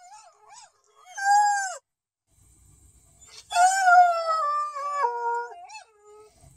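Black and tan coonhound howling: a short howl about a second in, then a longer howl that steps down in pitch as it goes.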